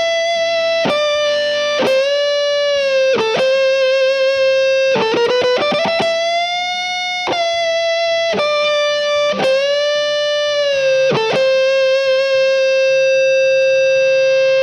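Epiphone SG 310 electric guitar with EMG active pickups playing a short single-note lead phrase with a sustained, driven tone. Its notes are bent up and down with vibrato, there is a quick run of picked notes around the middle, and it ends on one long held note.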